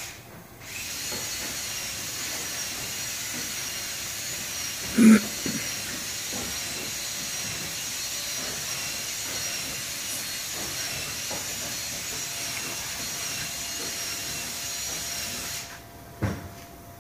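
A steady rushing hiss of air with a faint high whine from the CNC router's machinery, switching on under a second in and cutting off suddenly about 16 seconds in. A single sharp knock sounds about five seconds in.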